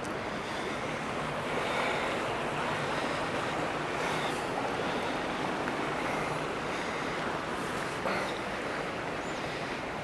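Steady rushing noise with no distinct events, and a faint knock about eight seconds in.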